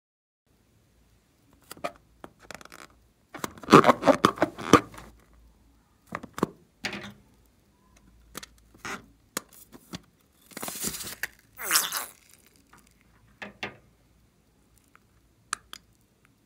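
Scissors snipping open a slime-filled rubber balloon and hands peeling the balloon over a glass dish, heard as a run of sharp clicks and scrapes. The clicks come thickest about four seconds in, and there is a hissing swish around eleven seconds.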